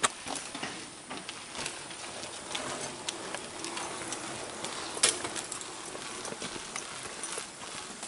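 Footsteps on a paved path: irregular scuffs and clicks, with one sharper click about five seconds in.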